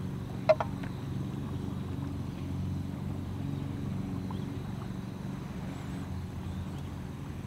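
A steady low hum, with a sharp clink about half a second in and a fainter one just after as an enamel mug knocks the rim of a frying pan while whitebait-and-egg batter is poured in.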